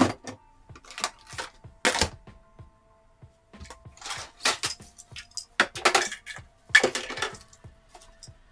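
Small hard objects clattering and rattling as they are handled, in several short clusters with a pause of about a second in the middle.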